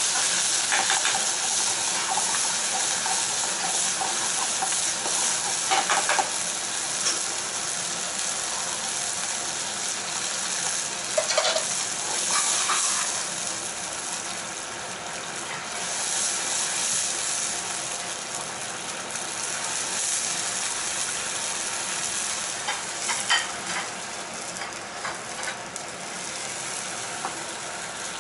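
Tuna and shimeji mushrooms sizzling in a frying pan over a gas flame, a steady hiss throughout. Now and then metal tongs tap and scrape against the pan as the food is stirred.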